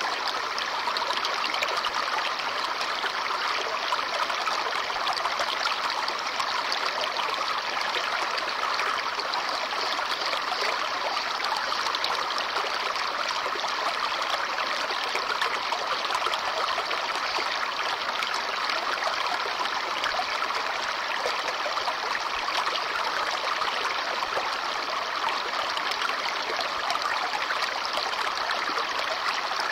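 Babbling brook: water running and splashing over stones in a steady, even rush.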